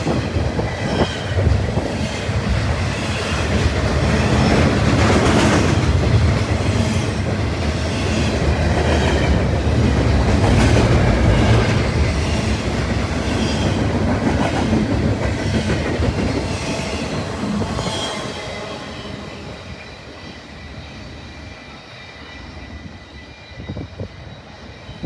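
Double-stack container train's well cars rolling past close by: a steady rumble of steel wheels on rail with regular clatter and a thin high wheel squeal. The sound dies away over the last several seconds.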